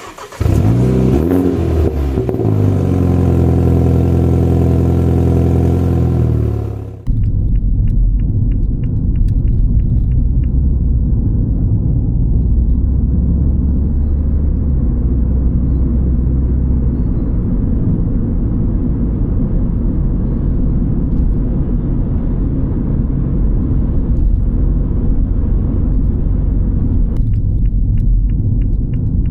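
Steady road and engine rumble of a MINI John Cooper Works on the move, with a light regular ticking in two short spells. It follows about seven seconds of a steady pitched sound that rises at the start and then cuts off abruptly.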